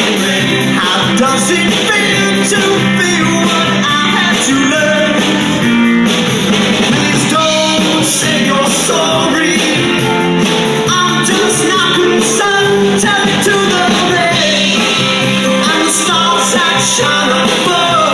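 A live rock band playing: a male lead singer singing over electric guitar, bass guitar and drums, loud and continuous.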